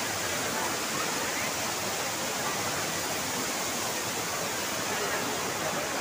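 Waterfall's steady rush of falling water, even and unbroken, with faint voices of a crowd beneath it.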